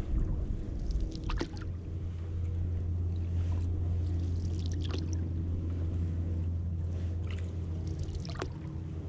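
Steady low hum of a small motor pushing a canoe slowly across calm water, settling in about a second in, with a few faint ticks and splashes on top.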